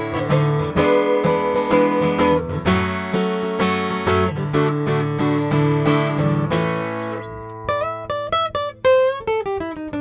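Folding carbon-fibre travel acoustic guitar by Journey Instruments being played: chords over bass notes, then about seven and a half seconds in, a descending run of single picked notes ending on a held note.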